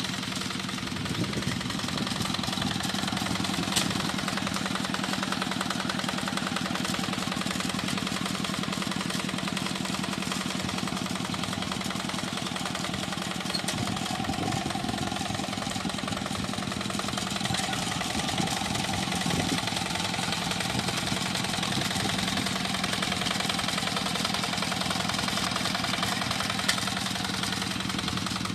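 Tractor engine running steadily with an even, rapid firing beat while plowing a rice paddy.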